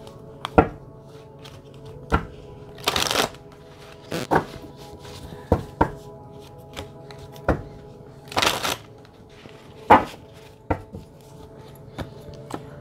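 A deck of tarot cards shuffled by hand: a string of sharp card snaps and slaps, with two longer riffling bursts about three and eight and a half seconds in. Near the end, cards are set down on the cloth-covered table.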